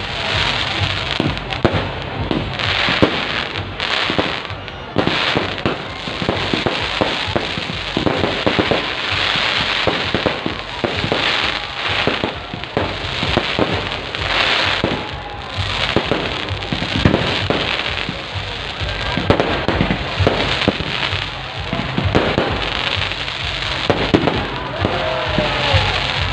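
Fireworks display going off continuously: a steady run of bangs and crackling bursts, one after another.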